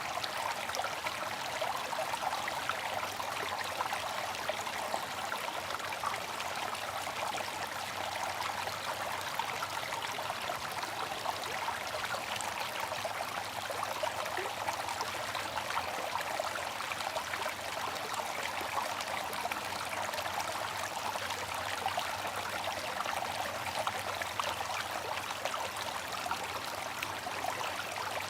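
Bamboo water fountain with water trickling and splashing steadily, a continuous even rush with a fine, flickering texture.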